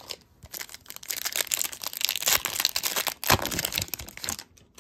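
O-Pee-Chee hockey card pack's foil wrapper being torn open and crinkled in the hands: a dense crackling that builds, with one sharp snap a little past three seconds in, and stops just before the end.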